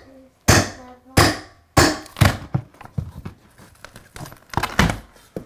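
Wainscot trim boards being pried off a wall with a metal trim-removal pry bar: about half a dozen sharp, irregular knocks and taps, the last few bunched together near the end.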